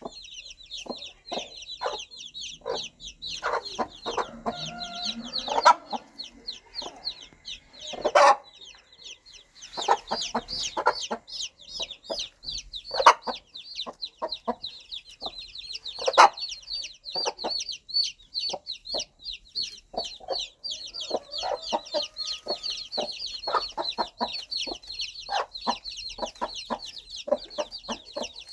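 A mother hen clucking in short, irregular notes to her chicks while the brood peeps continuously in rapid, high-pitched, falling chirps.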